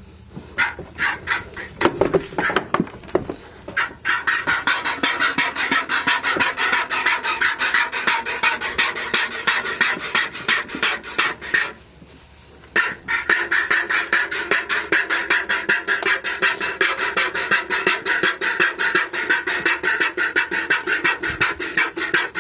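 Dairy goat being hand-milked: fast rhythmic squirts of milk hitting the inside of a blue plastic pail, with a pause of about a second near the middle before the squirting picks up again.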